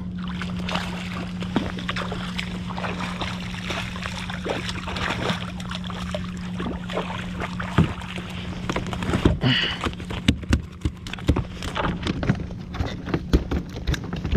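Spinning reel cranking in a hooked bluefish, with small clicks and water sounds. About eight seconds in, the fish thrashes and splashes at the surface beside the kayak, and sharp splashes and knocks follow as it is lifted aboard.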